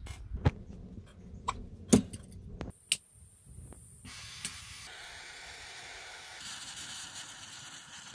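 Clicks and knocks of things being handled on a workbench, then a small handheld butane gas torch lit from a lighter about four seconds in and hissing steadily as its flame burns a design into wood.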